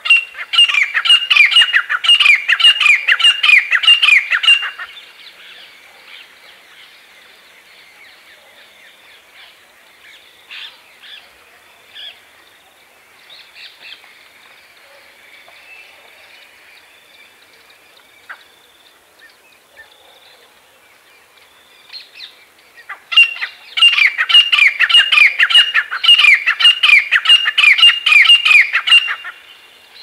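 Grey francolins calling: two loud bouts of rapidly repeated shrill notes, about three a second, each running about five seconds, one at the start and one near the end. Faint short calls sound in the gap between them.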